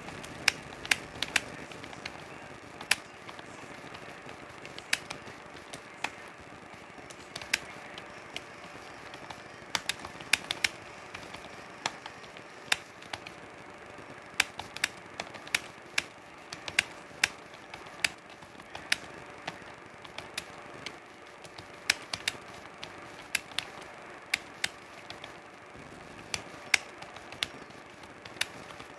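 Computer keyboard keys being typed on: sharp, irregular key clicks, about one or two a second and sometimes in quick pairs, over a steady faint hiss and hum.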